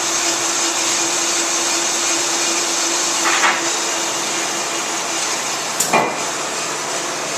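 On-car brake lathe running: a steady motor whir and hiss with a constant hum. Two short knocks break it, about three seconds in and again near six seconds.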